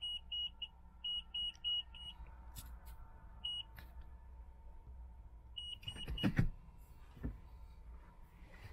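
Toyota FJ Cruiser's in-cabin reverse warning beeper sounding short high beeps, about four a second in broken runs, while the car is in reverse gear. A few knocks about six seconds in are the loudest sound.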